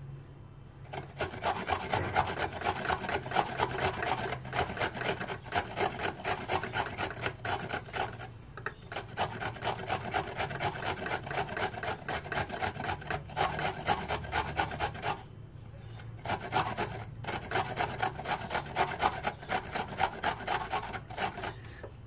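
A carrot is rubbed up and down against the metal face of a hand grater in repeated rasping strokes. There are short pauses near the start, about eight seconds in and about fifteen seconds in.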